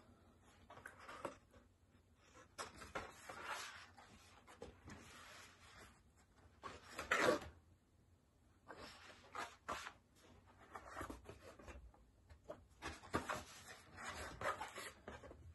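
Sheets of watercolor paper rustling and sliding over one another as they are picked up, held up and laid down. The rustles come irregularly, and the loudest is about seven seconds in.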